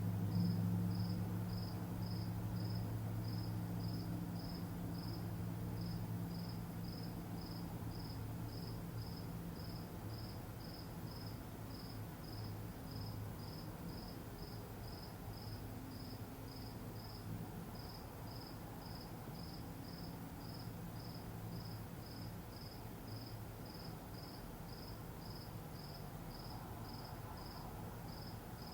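Steady insect chirping: short high chirps repeating evenly at about two a second, over a low hum that fades after about ten seconds.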